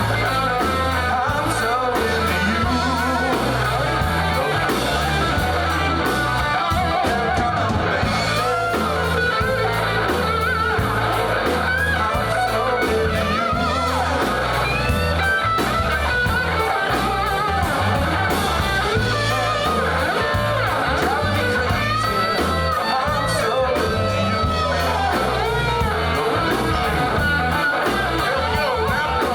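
A push-button radio playing a song: a voice singing over guitar and a steady bass line.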